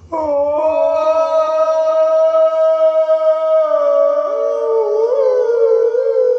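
Electronic keyboard sounding a long held tone that starts abruptly, steady at first, then wavering and sliding in pitch in the second half.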